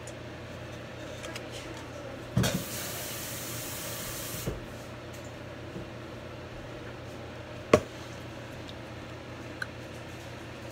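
A hiss starts suddenly a couple of seconds in and lasts about two seconds, like a spray or a short run of water, then cuts off. A few seconds later there is one sharp knock.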